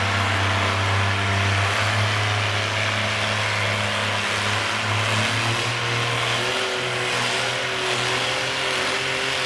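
Cockshutt 40 tractor engine running hard and steady under load while pulling the weight-transfer sled, its pitch shifting slightly about halfway through.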